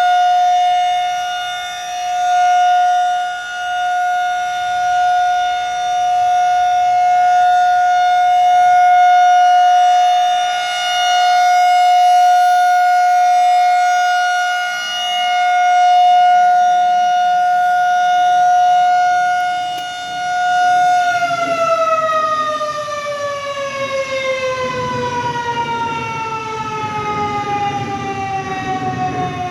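Federal Signal 2001 rotating outdoor warning siren sounding the steady Alert signal: one loud held tone that swells and fades every few seconds as the siren head turns. About 21 seconds in the tone shuts off and slides steadily down in pitch as the siren winds down.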